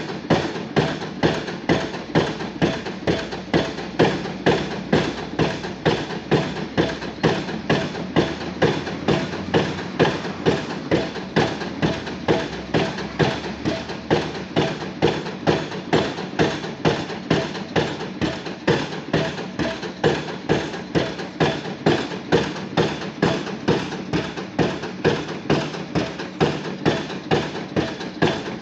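Junttan PMX22 pile driving rig's impact hammer driving a pile, striking in an even rhythm of about three blows every two seconds over a steady machine drone.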